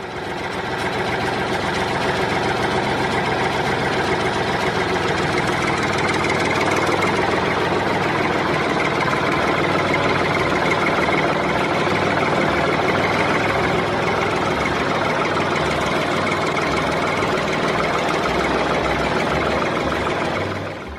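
An engine running steadily with a dense, even mechanical noise. It fades in over the first second and stops just before the end.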